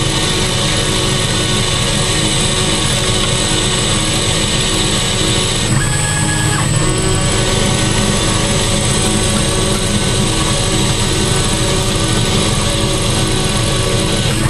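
9x20 benchtop lathe under CNC control, running steadily as the tool cuts 1215 free-machining steel, with a steady whine. The tone shifts about six seconds in.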